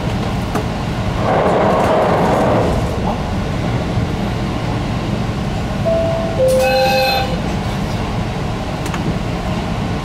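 JR Hokkaido KiHa 183 series diesel railcar running along the line, its engine and wheels on the rails giving a steady rumble heard from inside the front of the train, with a louder swell of noise between about one and three seconds in. About six seconds in comes a short two-note tone, the second note lower and longer.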